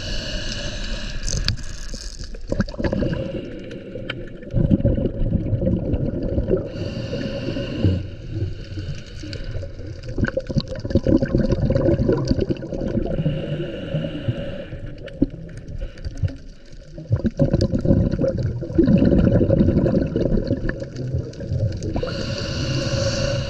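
Scuba diver breathing through a regulator underwater: a hissing inhale about every six to seven seconds, alternating with the low gurgle of exhaled bubbles.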